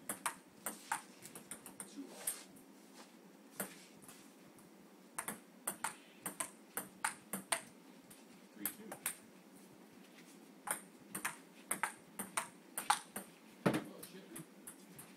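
Ping-pong rallies on a conference table: quick alternating clicks of the ball off cheap dollar-store paddles and the tabletop, in several runs with short pauses between them.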